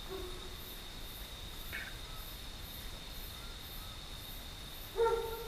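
Crickets chirping steadily. A faint short whistle comes about two seconds in, and a brief pitched sound near the end.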